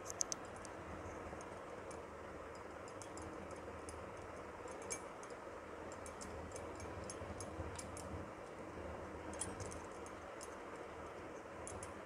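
Faint, irregular light clicks and clinks as hands fold and press stuffed paratha dough on a steel plate, with several close together right at the start. Under them is a steady low background hum.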